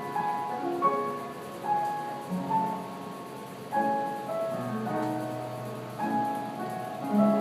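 Background piano music: a slow melody of held notes, with a new note or chord every half second or so.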